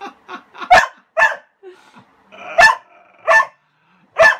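A dog barking at a push broom that lies over his toy, the barks coming from fear of the broom and wanting the toy beneath it. About five loud, sharp barks come at irregular intervals, with quieter short barks between them.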